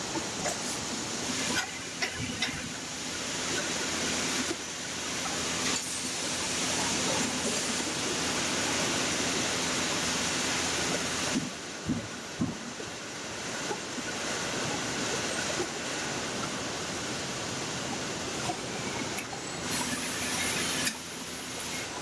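Car assembly-line factory noise: a steady hiss and hum of machinery, with a few sharp knocks and clicks, the clearest about halfway through.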